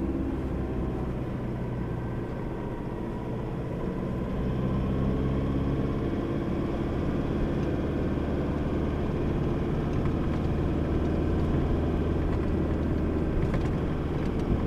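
Four-wheel-drive vehicle's engine running under way, with steady low road rumble; the engine note dips and then climbs a little a few seconds in.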